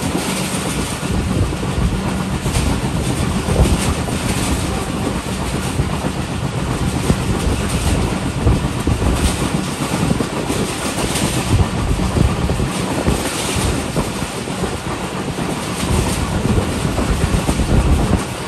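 Train running at speed on the rails: a steady rumble with the clickety-clack of wheels over rail joints.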